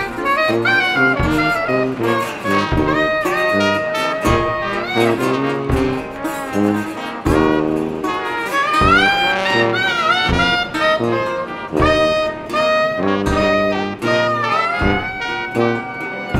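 Jazz background music with a brass lead line over a steady beat, with a few sliding notes.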